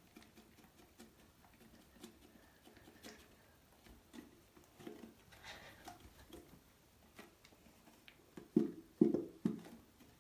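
PVA glue being squeezed and poured out of a bottle: faint squelching and clicking, with a few louder short squelches near the end.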